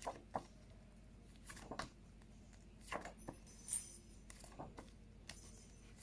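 Faint, scattered rustles and light clicks of sound cards being handled and swapped, over low room tone.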